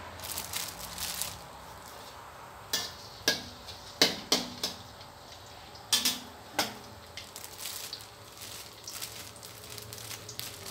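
Chopped garlic sizzling in hot oil in a steel wok. A metal spatula knocks and scrapes against the wok as it stirs, about six sharp knocks in the middle of the stretch, then lighter scraping.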